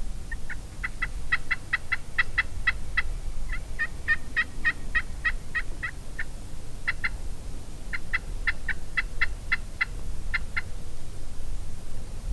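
Wild turkey calling: runs of short, sharp, evenly spaced notes, about six a second, broken into several strings with brief pauses, ending near the end.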